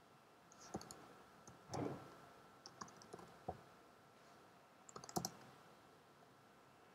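Keys tapped on a computer keyboard in small scattered groups: a few presses about one and two seconds in, a quick run around three seconds, and the loudest cluster a little past five seconds.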